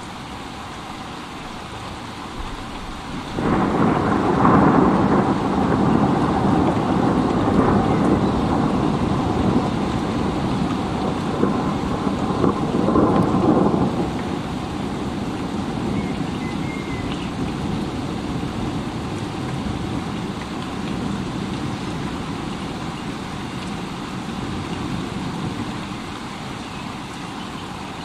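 Steady rain with a long rumble of thunder that breaks in suddenly about three seconds in, stays loud for about ten seconds, then slowly dies away under the rain.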